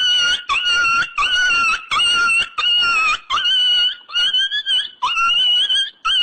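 Comic sound effect of high-pitched squeals repeated about twice a second, each one scooping up in pitch and then holding.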